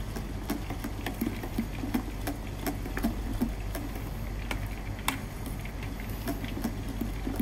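A metal spoon stirring olive oil into thick gazpacho in a stainless steel bowl, ticking and scraping against the bowl's side at irregular intervals, over a steady low hum.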